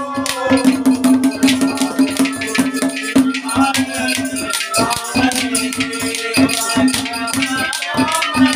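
Folk bhajan music: clay water pots (ghara) drummed with bare hands in a fast, dense rhythm, over a steady held note and a wavering melody line.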